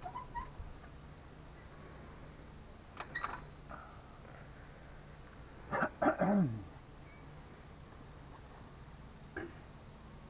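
Crickets chirping steadily, with a few metal knocks and clanks as steel drill pipe sections are handled and threaded by hand, the loudest about six seconds in.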